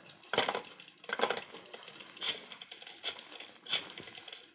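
Radio-drama telephone sound effect: a handset put down and a rotary dial turned for another call, heard as a string of sharp clicks and rattles about a second apart.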